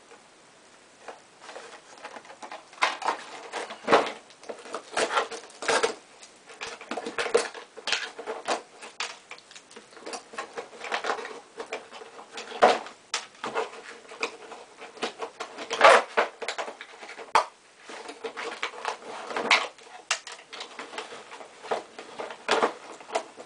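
Cardboard box and packaging being handled by hand: irregular rustling, scraping and tapping as the box flaps are worked open.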